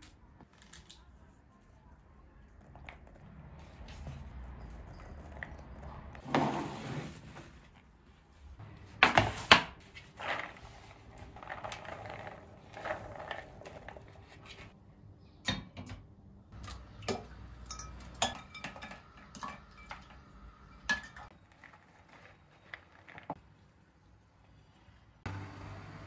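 Irregular kitchen handling sounds: clicks, knocks and rustles of fresh peas being shelled and handled in bowls, with a few louder clatters of dishes and a metal pot and strainer, the loudest about nine seconds in.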